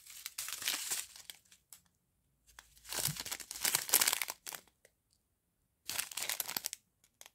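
Thin plastic sachets of round diamond-painting drills crinkling as they are handled. The crinkling comes in three bursts with short quiet gaps between them.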